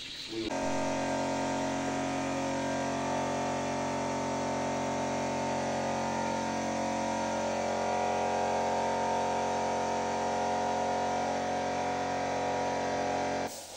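Steady hum with many overtones, unchanging in pitch and level, starting suddenly about half a second in and cutting off abruptly near the end.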